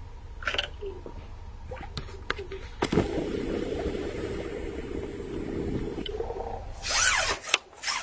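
A hooked crucian carp is brought to the surface and splashes as it is drawn in, loudest in a burst about seven seconds in. Earlier there are a few sharp clicks and a steady low hum lasting a few seconds.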